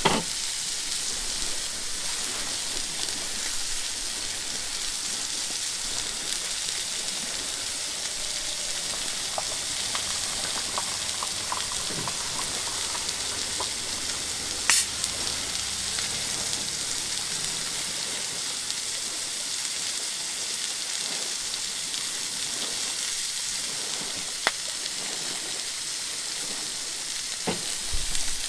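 Pork chops sizzling steadily in a frying pan on a portable gas stove, with a few sharp clicks, the loudest about halfway through.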